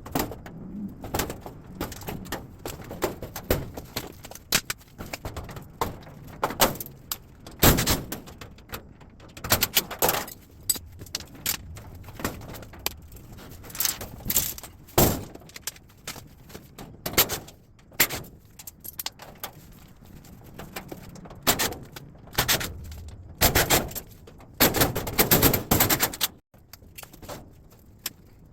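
Irregular metal clanks, knocks and rattles of an appliance being taken apart by hand for scrap, with a few quick runs of clatter near the end.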